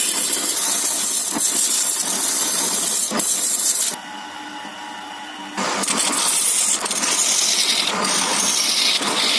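Turning gouge cutting a spinning wooden blank on a lathe: a loud, rough hiss of shavings being torn off. About four seconds in the cut stops for a second and a half, leaving only the lathe's steady motor hum, then the cutting resumes.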